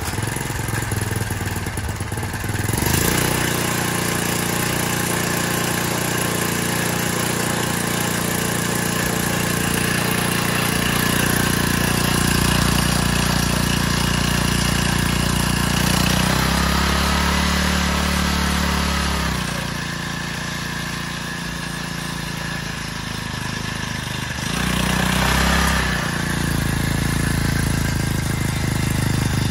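Hangkai 4 hp four-stroke outboard motor, a Honda GXV50 clone with a homemade exhaust muffler pipe, pull-started warm without choke. It catches at once and runs steadily, its speed shifting a few times, with a brief rise near the end.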